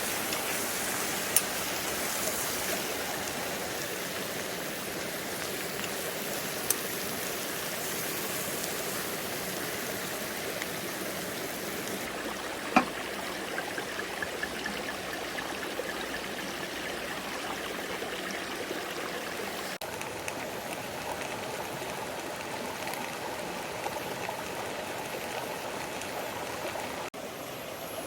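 Mountain valley stream running steadily, with a few sharp clicks on top, the loudest about halfway through.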